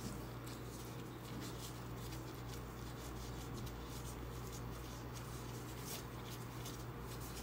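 Faint crinkling and rustling of thin plastic food-prep gloves as hands shape a soft mashed-potato ball around minced meat, over a steady low hum.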